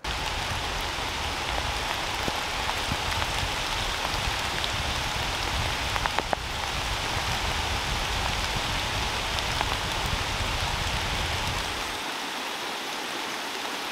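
Steady rain pattering, with a low rumble underneath that drops away near the end and a few brief soft knocks about six seconds in.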